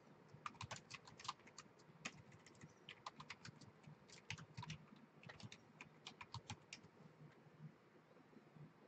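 Faint typing on a computer keyboard: quick runs of key clicks in irregular bursts that stop about two seconds before the end.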